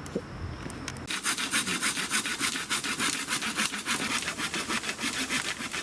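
Hand saw cutting through wood in fast, even back-and-forth strokes, about five or six a second, starting about a second in.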